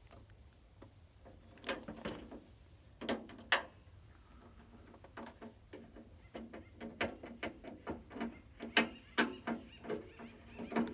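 Irregular clicks, knocks and fabric rustling close to the microphone, from handling while a screwdriver works on a plastic camp stove's base. The clicks come sparsely at first and then more often.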